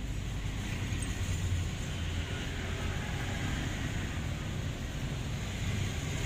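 A steady low hum from a running motor over an even background noise.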